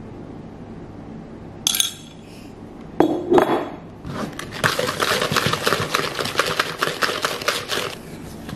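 Metal hand whisk beating egg into creamed butter in a plastic mixing bowl: a quick, steady run of clicking, scraping strokes for about four seconds that stops abruptly. Before it come a single sharp clink and a short knock as the egg is added.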